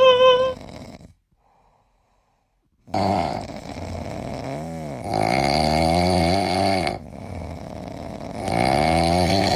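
A cat snoring in its sleep: three louder rasping snores about every two to three seconds, with quieter breaths between them. It starts after the end of a hummed note and about two seconds of silence.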